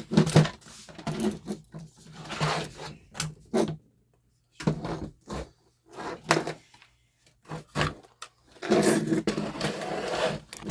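Irregular clicks, knocks and rattles of hands handling the plastic chassis of a Traxxas Slash RC truck, over a faint steady low hum.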